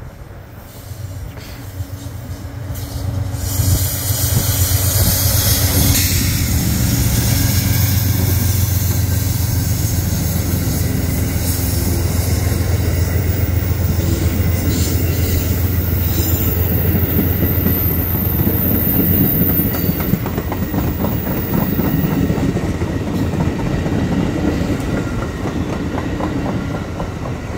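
An Amtrak passenger train passing, led by two diesel-electric locomotives, the second a GE Dash-8, whose engines drone loudly as they go by a few seconds in. The passenger cars follow, their wheels clicking over the rail joints, with a high thin wheel squeal partway through.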